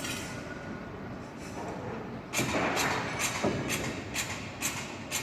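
A steady background noise, then from about two seconds in a run of sharp knocks, about two a second.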